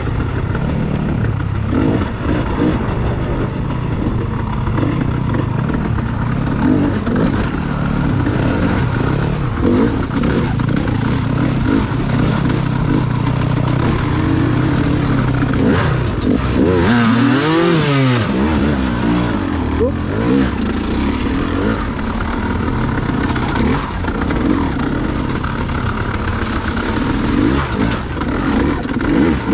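Vehicle engine running at varying throttle, its pitch shifting throughout, with one quick rev that rises and falls a little past halfway.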